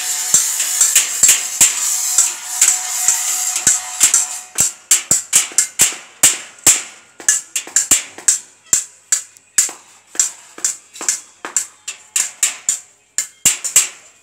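Hand hammer striking the steel bars and scrolls of a wrought-iron gate: a quick run of sharp, ringing metal taps, about two to three a second. A denser steady noise runs under the strikes and stops about four seconds in.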